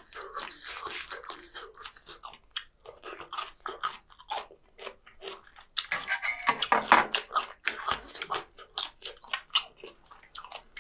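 A person chewing food close to the microphone: a stream of short wet clicks and smacks, with a denser, louder stretch of chewing about six to seven seconds in.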